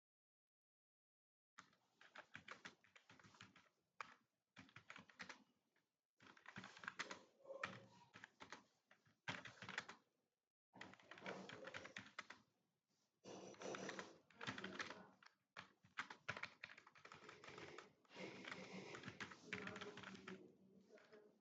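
Typing on a computer keyboard: runs of rapid keystrokes in bursts of a second or more, broken by short pauses, starting about a second and a half in.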